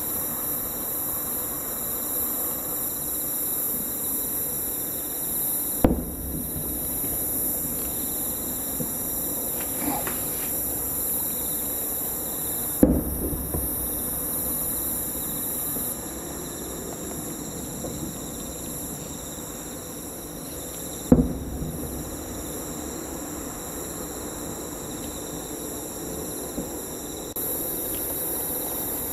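Distant aerial fireworks shells bursting about 3 km away: three sharp booms several seconds apart, with a few fainter pops between them, over a steady high chirring of night insects.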